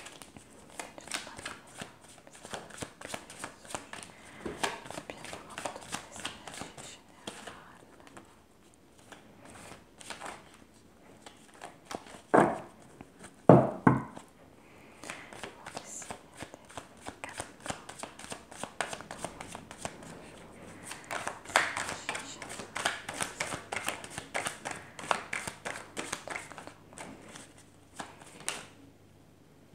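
A deck of oracle cards shuffled by hand: a soft, quick patter of cards slipping and slapping against each other, with a couple of louder knocks near the middle.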